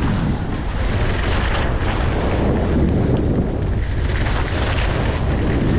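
Wind buffeting the GoPro's microphone: a steady, loud low rumble and rush with no clear tones.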